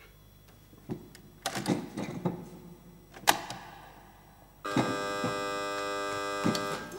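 A few light knocks and one sharp click, then a steady buzzing tone that starts abruptly and holds for about two seconds.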